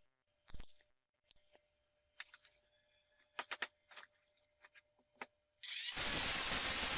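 Light metal clinks and taps of steel parts being handled and set in place, then about six seconds in a loud, steady, crackling hiss starts abruptly, typical of an electric welding arc being struck.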